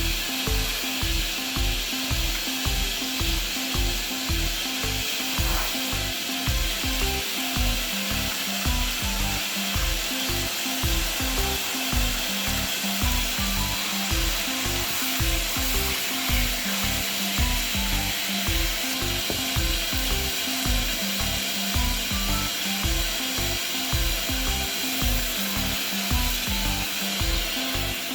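Background music with a steady beat and a plucked-sounding melody, over a steady hiss.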